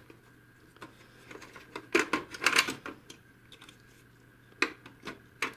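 Plastic parts of an HP DeskJet 2130 inkjet printer clicking and rattling by hand as an internal assembly is worked loose and lifted out: a burst of clatter about two seconds in, then two sharp clicks near the end.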